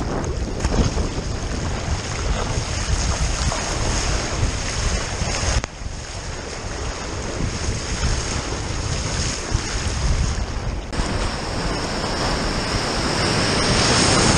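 Wind buffeting the microphone over rushing sea water as a sea kayak surfs ocean swells. The sound of breaking surf grows louder near the end as whitewater breaks around the boat.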